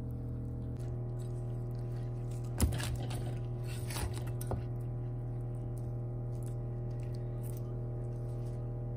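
Cleaver cutting through a whole roast duck on a wooden cutting board. A sharp chop lands on the board about two and a half seconds in, the loudest sound here, and is followed by crunching of the crisp skin and a few more cuts around four seconds. A steady low hum runs underneath.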